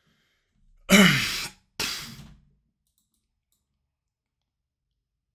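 A man's loud sigh, breathy and falling in pitch, about a second in, followed by a shorter second breath out.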